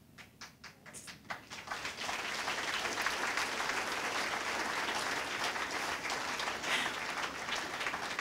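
Audience applauding: a few scattered claps that swell within about two seconds into full, steady applause.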